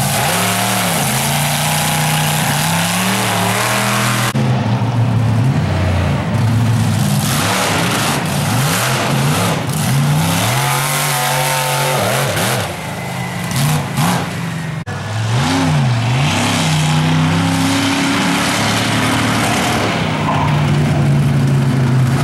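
BigFoot monster truck's engine revving hard again and again, its pitch rising and falling with each blip of the throttle while the truck maneuvers.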